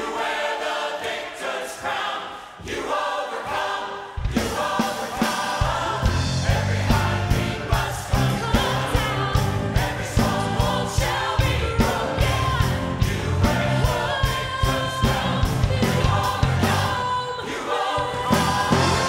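A church choir and a female soloist sing a gospel worship song. About four seconds in, the full band comes in with heavy bass and a steady drum beat.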